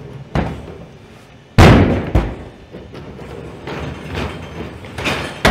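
Boston Dynamics Atlas humanoid robot's feet landing on plywood and scaffold platforms: a run of knocks and thuds, the loudest and heaviest about one and a half seconds in, with lighter knocks later on.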